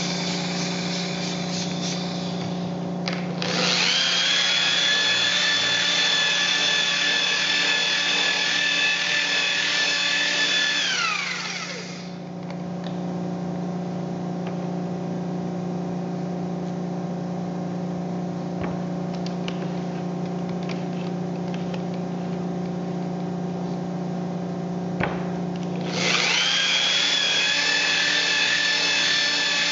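Makita electric rotary polisher with a wool pad buffing a solid-surface countertop, its motor giving a steady high whine. About eleven seconds in it is switched off and the whine slides down in pitch as it winds down, leaving a steady low hum. Near the end it is started again and winds back up.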